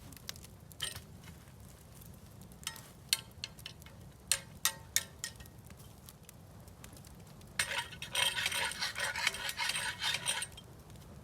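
Cast iron skillets clinking several times as they are handled, then a few seconds of rough scrubbing on the rusty cast iron.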